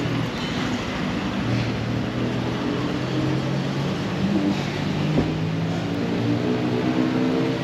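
Street traffic: car and motorbike engines running and passing close by, a steady hum over road noise.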